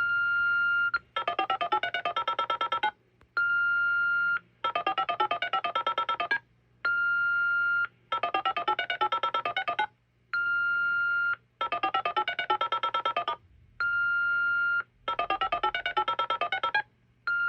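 Fire alarm panel's dialer reporting events over the phone line in touch tones: about a second of one steady tone alternating with roughly two-second bursts of rapid touch-tone digits, five rounds in a row. The pattern fits Contact ID, with the receiver acknowledging each event message so the panel sends the next in its backlog of events.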